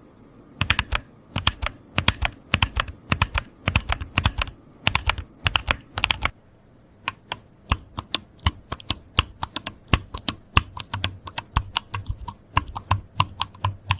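Typing on a computer keyboard: rapid key clicks. It starts about half a second in, pauses briefly near the middle, then goes on in quicker, lighter strokes.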